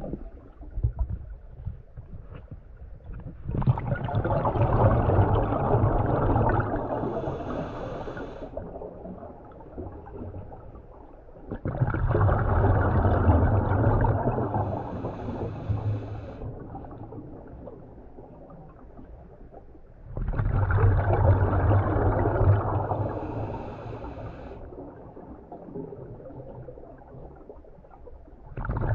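Scuba diver's breathing heard underwater: three long rushes of exhaled bubbles from the regulator, one about every eight seconds. Each starts suddenly and fades, with a short higher hiss near its end and quieter stretches between.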